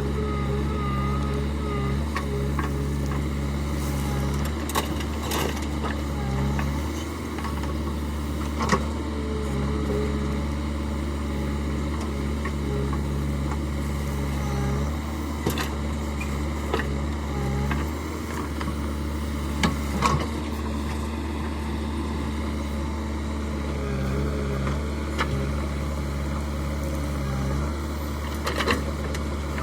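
Diesel engine of heavy earth-moving machinery running steadily, its note rising and easing in spells as it works. A few sharp knocks are heard here and there.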